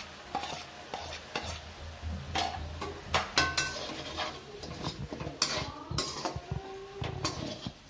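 Metal slotted spatula scraping and clinking against an aluminium kadai as chicken pieces frying with spices are stirred: irregular scrapes and knocks.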